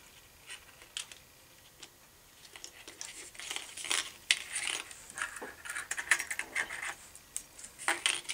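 Small metal clicks and clinks of a wire 1-2-3 fishing rig's spinner blades, swivels and snap clips being handled: a few light ticks, then a busy run of jingling clinks from about two and a half seconds in.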